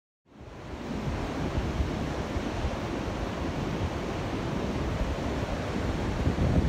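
Ocean surf breaking on a sandy beach, a steady rushing wash with a heavy low rumble from wind on the microphone. It comes in abruptly out of silence a fraction of a second in.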